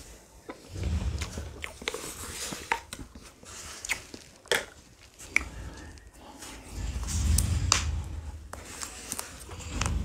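Mouth sounds of a person eating ice cream: sharp wet clicks and smacks throughout, with low rumbles about a second in and again around seven to eight seconds.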